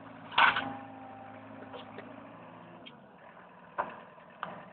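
Komatsu PC50MR mini excavator's diesel engine running low and steady, then fading out about two and a half seconds in. A short loud burst of noise comes about half a second in, and two brief knocks near the end.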